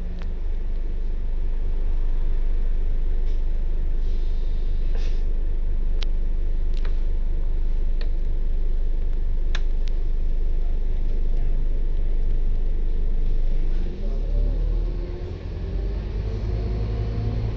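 A bus engine idles with a steady low rumble, heard from inside the bus, with a few light clicks and rattles. Near the end the engine note rises as the bus pulls away from a standstill.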